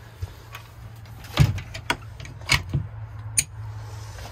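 A handful of sharp knocks and clicks, the loudest about a second and a half in, as a wooden chicken coop door is handled and swung open, over a low steady hum.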